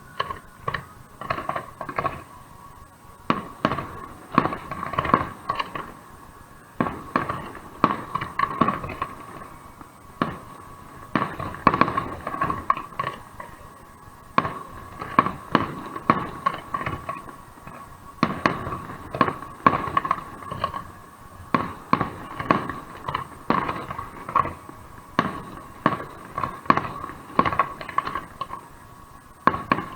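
Fireworks going off in rapid volleys of sharp bangs and crackles, with short lulls between volleys, over a steady faint tone.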